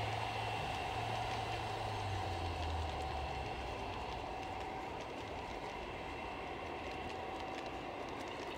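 Garden-railway model freight cars rolling past on the track, wheels clicking over the rail joints with a faint steady whine. A low hum fades away in the first three seconds.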